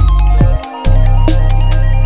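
Electronic background music with a heavy, wobbling dubstep-style bass, sharp drum hits and a synth melody.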